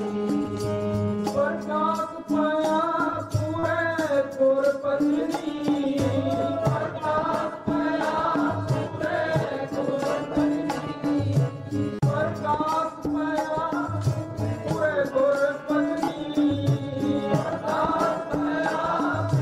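Sikh keertan: a male voice singing hymns through a microphone, accompanied by harmonium and tabla with a steady, even beat.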